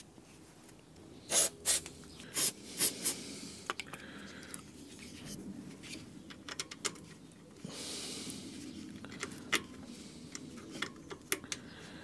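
Aerosol oil spray hissing onto the alternator's Allen mounting bolts: a few short squirts in the first few seconds and a longer one about eight seconds in, among small metallic clicks and rattles of the bolts being handled.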